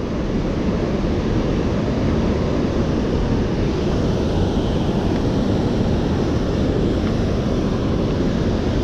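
Steady rush of water pouring out of a dam's outlet gates and churning in the river below.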